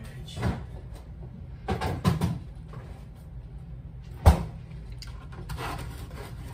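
Knocks and thumps of kitchen doors and items being handled: a soft bump about half a second in, a few knocks around two seconds, and one sharp knock, the loudest, a little after four seconds.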